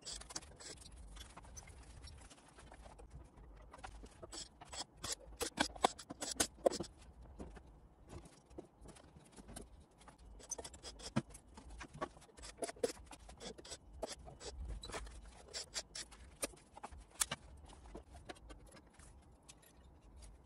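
Scattered clicks, taps and scrapes of metal parts being handled as a power amplifier's sheet-metal chassis is taken apart. The clicks are busiest and loudest a few seconds in.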